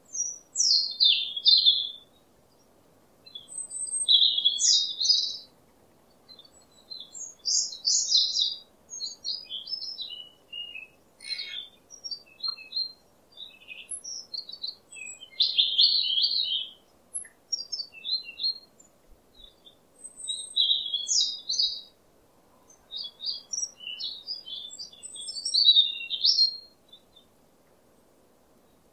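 A songbird singing: short high-pitched phrases of quick chirps and trills, repeated every few seconds with brief pauses between them.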